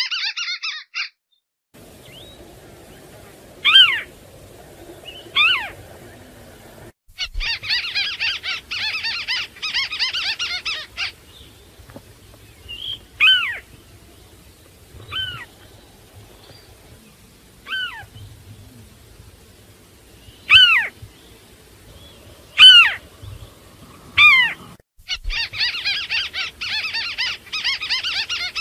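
Crake (tikusan) calling: bursts of fast, harsh chattering at the start, in the middle and near the end, with single sharp downward-sliding calls spaced a second or two apart in between.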